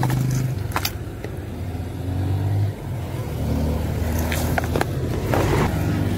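A motor vehicle's engine running steadily at low revs, its pitch shifting up and down, with a few sharp plastic clicks from a clear tackle box being opened and handled, about a second in and again near the end.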